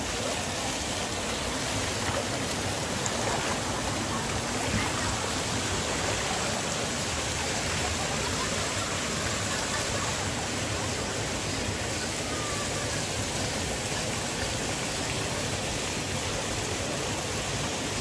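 Steady rush of a mountain stream, water flowing over a rocky bed.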